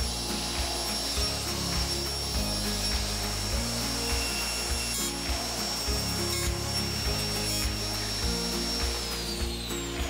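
Table saw running and cutting wood, the workpiece pushed through on a tilted miter sled in repeated passes, over background music. The blade's steady high whine drops in pitch near the end as the saw is switched off and spins down.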